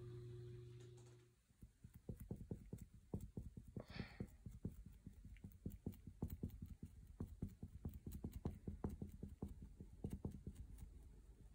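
Flat paintbrush dabbing acrylic onto a stretched canvas: a quick, irregular run of soft taps, several a second, the taut canvas giving each one a dull thump. A low steady hum cuts off about a second in.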